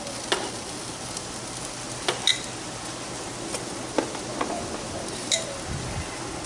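Chicken sizzling on a charcoal grill grate: a steady hiss broken by a few sharp pops and crackles.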